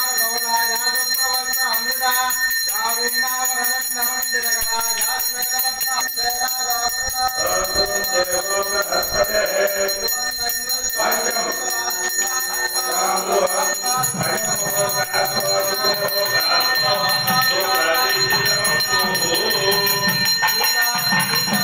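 Hindu puja hand bell (ghanta) ringing continuously over chanted mantras.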